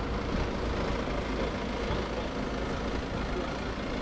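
Steady low rumble of car engines as vehicles pull away and a van drives past.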